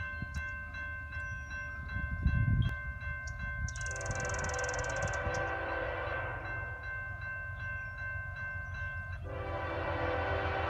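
Railroad crossing bell ringing steadily while an approaching CSX freight locomotive sounds its air horn: one long blast begins about four seconds in, and a second blast follows at about nine seconds. A low rumble swells briefly about two seconds in.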